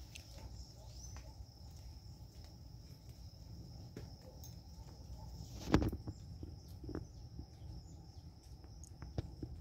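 Outdoor garden ambience: a steady high-pitched insect drone over a low rumble, with a few faint clicks and one loud thump a little past halfway.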